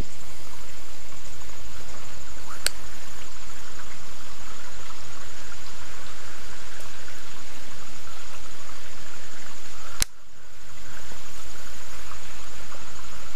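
Steady outdoor woodland noise with a high, even insect drone. Two sharp clicks, about 3 and 10 seconds in; after the second the noise drops briefly and swells back.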